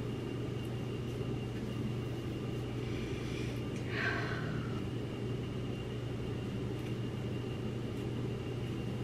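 Steady low mechanical hum with a faint thin high whine over it, in a small, echoey room.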